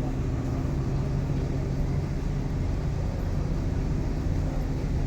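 A vehicle's engine running steadily: a constant low drone and hum with an even wash of travel noise over it.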